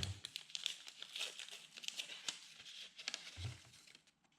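Plastic packaging crinkling and tearing as it is handled: quick, irregular crackles that thin out and stop shortly before the end.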